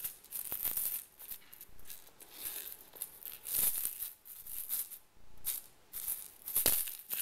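A cat wand toy with a ball on the end being shaken and batted by kittens, rattling in irregular short bursts.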